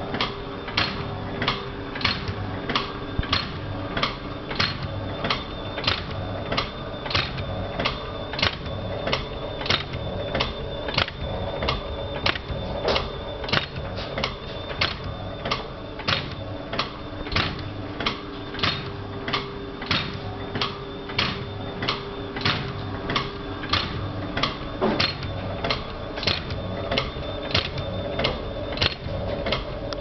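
Mechanical swing-test rig running, clicking sharply about twice a second in a steady rhythm over a constant motor hum, as it repeatedly swings a headset cord to flex its USB plug.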